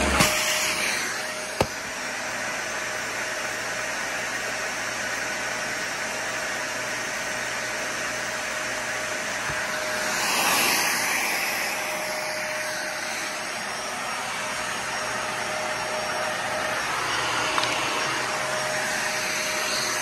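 Dyson Ball Animal 2 upright vacuum cleaner running steadily, a thin motor whine over the rush of air, as it is pushed over a hardwood floor. There is a sharp click about a second and a half in, and a brief louder rush about halfway through.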